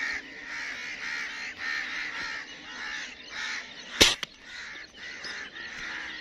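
A single sharp air-rifle shot from a Gamo Replay 10X break-barrel about four seconds in, followed by a smaller click. Birds call over and over throughout, about twice a second.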